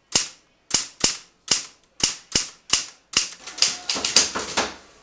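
Manual typewriter keys struck one at a time, about two or three a second. About three and a half seconds in, this gives way to a quick run of knuckle knocks on a door.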